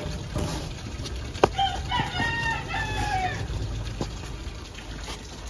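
A rooster crows once, a pitched call of about two seconds that falls away at the end. A sharp click comes just before it.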